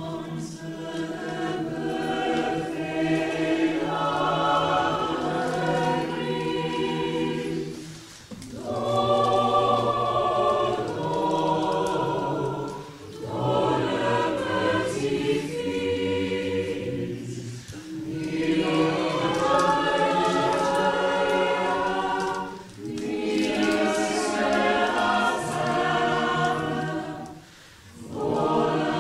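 Mixed choir of men's and women's voices singing in harmony, in phrases of about five seconds broken by short breath pauses.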